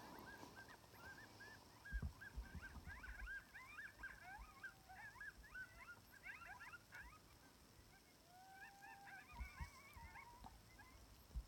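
Electronic coyote call playing faint coyote yips and yelps in a quick, jumbled run. From about eight seconds in, a few longer, lower howl-like notes join them. A few low thumps are mixed in.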